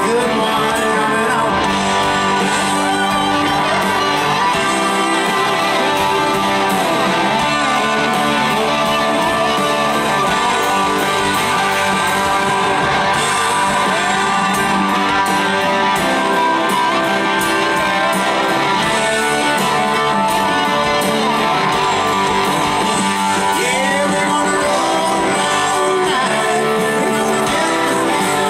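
Southern rock band playing live through an outdoor PA: electric guitars and drums, with sung vocals.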